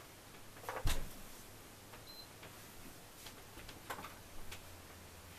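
Faint handling and movement noises in a small room: one thump about a second in and a few light clicks later, over a low steady hum.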